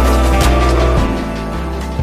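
Background music with a heavy bass and a steady beat, dropping a little in loudness about a second in.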